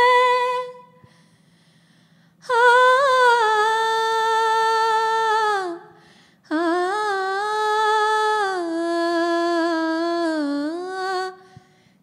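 A woman's unaccompanied voice singing a ghazal melody without words. A held note fades out in the first second. After a short pause come two long, slowly bending melodic phrases, the second longer than the first.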